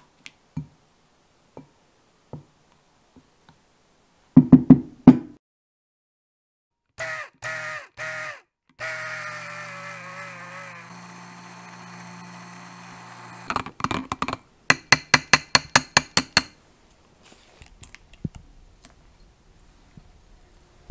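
Immersion hand blender emulsifying batter in a glass bowl: a few short pulses, then running steadily for about five seconds. Before it comes a handful of loud knocks, and after it a fast run of about a dozen taps, then faint stirring.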